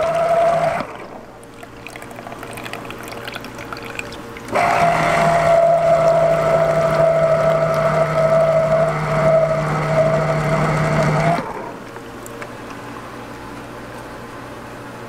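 Electric citrus juicer's motor spinning its cone with a steady hum as orange halves are pressed, juice pouring from the spout. The motor stops about a second in, runs again from about four and a half seconds in for some seven seconds, then cuts off.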